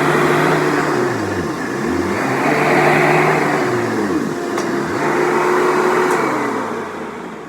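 Hoover Dimension Supreme upright vacuum cleaner running loud, its motor pitch dipping and rising about every two seconds, and fading near the end. The owner says it definitely needs a new belt.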